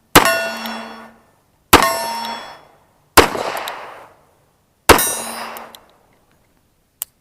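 Four pistol shots about a second and a half apart, each followed by the ring of a struck steel target that dies away within about a second. A single sharp click comes near the end.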